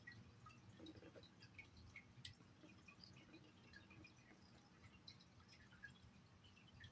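Near silence: room tone with faint, irregular tiny ticks.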